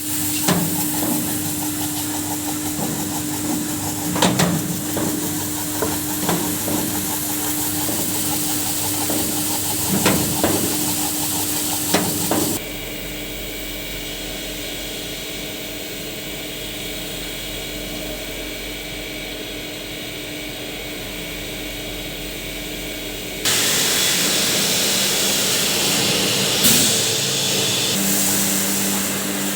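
Rice washing machine running: a steady motor tone with irregular knocks at first, then an abrupt change to a steadier hum and hiss, which in turn jumps to a louder, rougher noise near the end.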